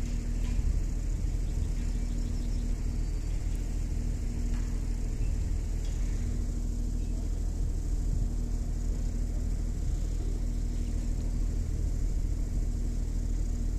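A steady low mechanical rumble with a constant low hum, like an engine running, holding even throughout with no distinct knocks or changes.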